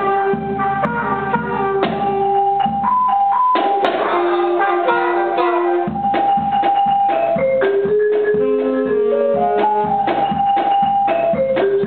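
Percussion ensemble playing a piece: a steady run of snare and drum strokes under held pitched notes from the keyboard section, the melody moving between long sustained tones.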